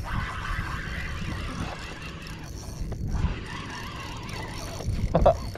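Steady wind noise on the microphone aboard an open fishing boat, a low rumble with a brighter hiss during the first two seconds.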